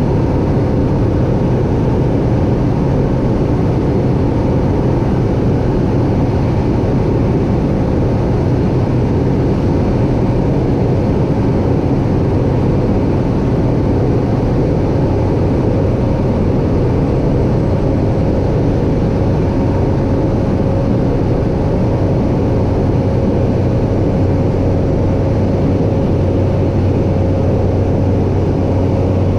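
Cabin noise of a Cessna 208B Caravan in flight: its single Pratt & Whitney PT6A turboprop and propeller give a steady drone with a low hum. Near the end the lowest hum grows a little stronger.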